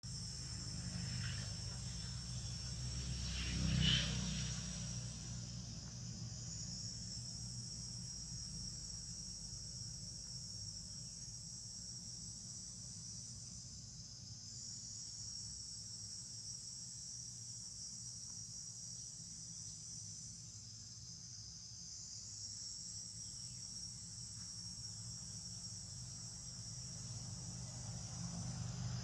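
Steady high-pitched insect chorus that drops away briefly twice, over a low rumble of distant road traffic, with one short louder sound about four seconds in.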